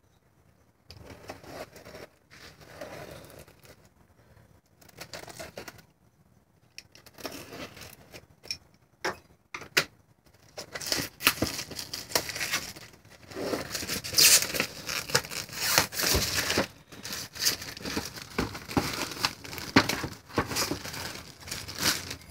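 Packaging on a fireworks assortment box being torn and crinkled as it is worked off by hand. The rustling is sparse and quiet at first, then becomes busier and louder about halfway through.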